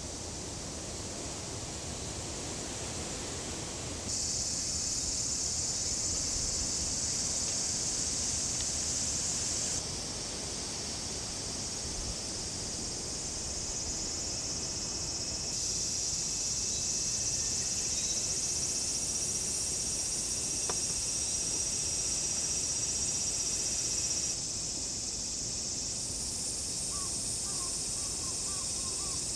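Forest insect chorus, a steady high-pitched buzzing that jumps in level and pitch several times. A run of short bird calls comes near the end.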